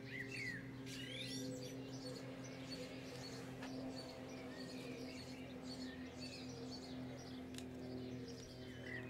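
Birds chirping and twittering in the background over a faint, steady low hum.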